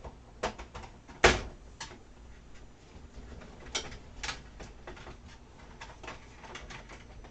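Handling clicks and knocks of a metallic watercolor palette tin being set down and opened on a craft mat, with one sharp knock about a second in and a few lighter clicks after.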